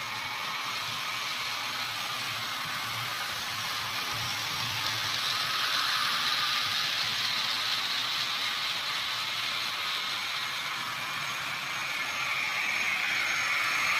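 HO scale model trains running on the layout: a steady whir of the small electric motors with light clatter of wheels on the track, getting louder near the end as a train comes closer.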